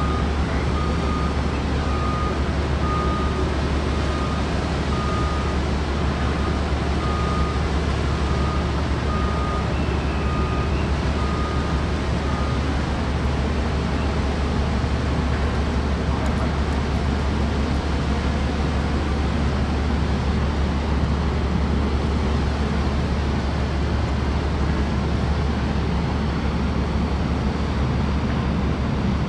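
Steady low drone of the new car ferry Orange Osaka's engines. An electronic warning beeper sounds a little faster than once a second over the first twelve seconds or so.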